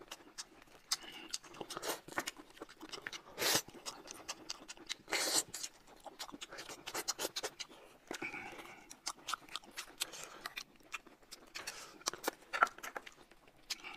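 Close-miked eating sounds: chewing, with many small clicks and scratches from hands handling food, and two brief louder rustles about three and a half and five seconds in.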